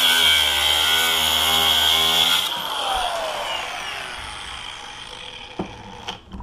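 Power cutting tool grinding into a Master Lock four-wheel combination lock, with a loud high whine. About two and a half seconds in the cutting stops and the tool winds down with a falling whine. A few light clicks follow near the end.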